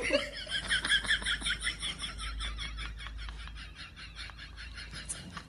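Rapid series of short, high animal chirps, about eight a second, gradually fading away.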